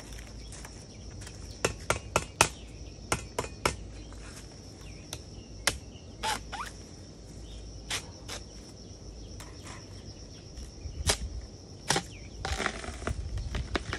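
A steady high insect drone under sharp crackles and snaps: a cluster about two seconds in, a few single ones later, and a busier stretch near the end. The snaps are dry bamboo leaf litter and shoot sheaths crunching under feet and gloved hands as a man works at the base of a bamboo shoot.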